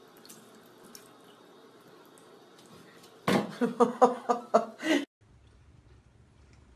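Faint trickle of a bathroom tap running into a sink. About three seconds in, a person bursts out laughing in about seven quick pulses over two seconds, which cut off abruptly.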